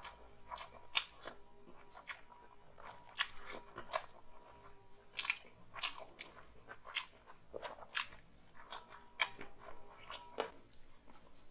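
Close-up chewing and mouth sounds of a person eating chicken curry and rice by hand: a run of short, irregular clicks and smacks as he bites and chews.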